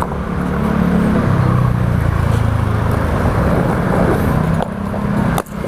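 A scooter engine running close by, its note shifting lower about a second in.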